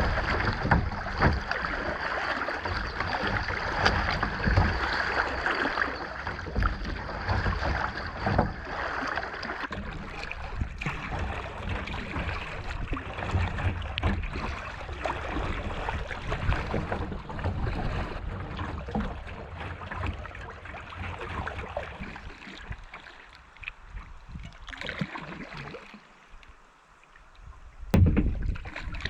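Kayak being paddled through choppy water: paddle splashes and water slapping the hull, with wind rumbling on the microphone. It eases for a few seconds near the end, then picks up again.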